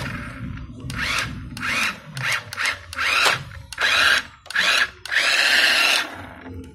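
Small electric motor and plastic gearbox of a toy RC dump truck whirring in a series of short bursts, its pitch rising and falling as it starts and stops, with a longer run of about a second near the end.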